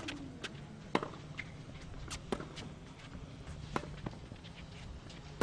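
Tennis rally on a hard court with no crowd: sharp pops of racket strings hitting the ball, the first at the serve, then about every one to one and a half seconds, with fainter ball bounces and the players' footsteps in between.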